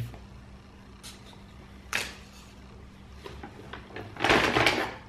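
Small containers being handled on a tabletop: a light knock about two seconds in, then a brief louder scraping rustle near the end, over a faint steady hum.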